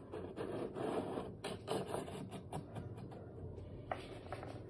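Faint rubbing and scraping with small irregular clicks as the camera is slid along the floor of a miniature model yard, busier in the first couple of seconds and thinner after, with one sharper tick near the end.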